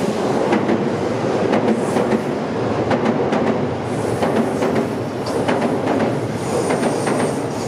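Kintetsu 6620 series electric train running along the track, a steady rumble with wheels clattering over rail joints. A thin high wheel squeal comes in briefly near the end.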